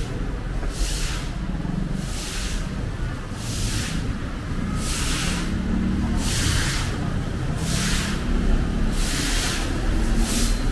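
Low street-traffic rumble, with short hissing sounds about once a second over it.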